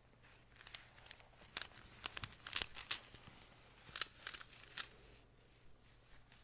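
Close-miked handling of black agate rune stones: an irregular run of light, sharp clicks and crinkles, thinning out in the last second or so.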